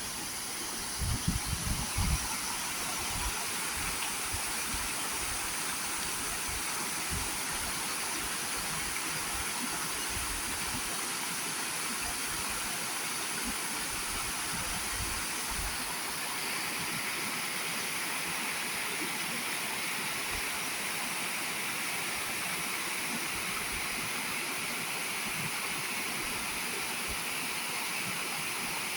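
Waterfall: a steady rush of falling water, with a few low thumps in the first couple of seconds. The rush gets a little brighter about halfway through.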